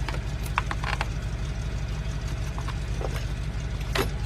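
BMW 328i engine idling with a misfire, a steady low pulsing run, with a few light clicks of handling over it.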